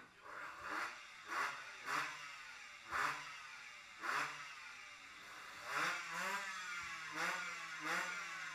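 Pit bike engine revved in a series of about ten quick throttle blips at irregular spacing, each rising sharply and then falling away in pitch.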